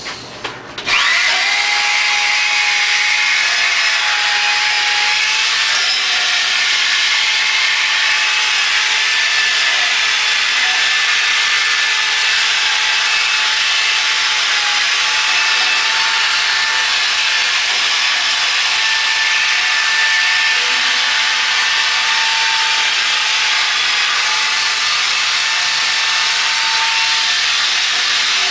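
Handheld power tool starting up about a second in and running steadily with a constant whine, scouring rust and old paint off a wrought-iron sign post to rough it up for paint.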